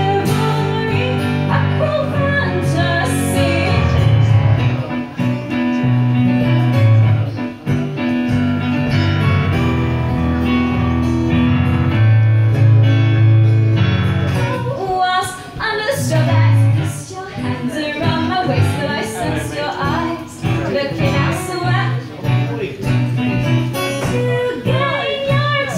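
Live acoustic song: a woman singing with electric keyboard and acoustic guitar accompaniment. The middle is mostly keyboard and guitar chords, and the voice comes back strongly about halfway through.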